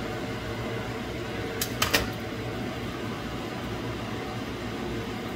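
Steady background hum, with three quick, sharp clinks about two seconds in as cookware is handled after the lid comes off the frying pan.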